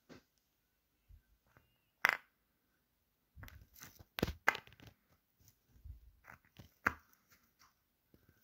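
Hands handling a jigsaw puzzle and its box: scattered sharp clicks and rustles, with one loud click about two seconds in and a busier run of clicks and rustling from about three and a half to seven seconds.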